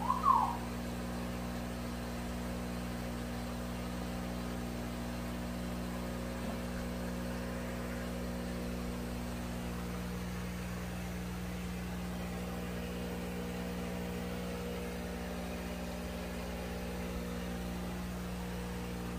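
A steady low mechanical hum made of several level tones, with a short falling sound right at the start.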